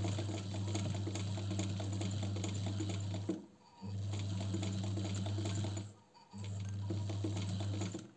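Singer 216 zigzag sewing machine running under its electric motor and stitching through fabric: a steady motor hum with fast ticking of the needle mechanism. It runs in three spells and stops briefly twice, about three and a half seconds in and again about six seconds in.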